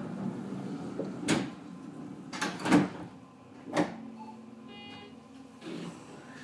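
Tobu 50000-series electric train running, heard from just behind the driver's cab: a steady low hum with four sharp clacks, two of them close together in the middle.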